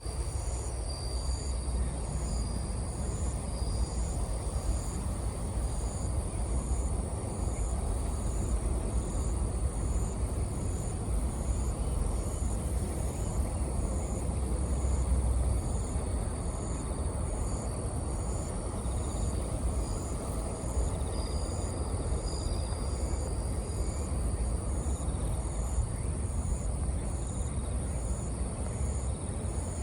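Bell crickets (suzumushi) chirping: short high chirps repeated at a steady pace, over a constant low rumble of background noise.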